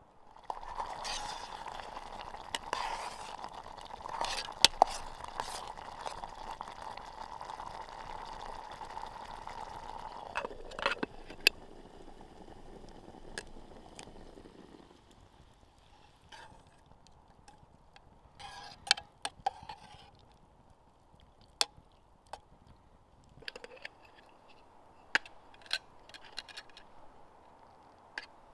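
Water pouring from a black camp kettle in a steady stream for about ten seconds, the sound sinking in pitch and fading as the flow tails off. Then a quieter stretch of scattered sharp clicks and crackles.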